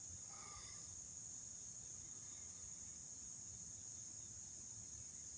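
Faint, steady, high-pitched chorus of crickets trilling.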